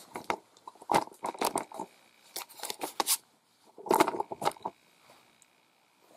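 Handling noise of a camera being picked up and moved: rustling with sharp clicks and knocks in a few irregular clusters, the loudest about four seconds in.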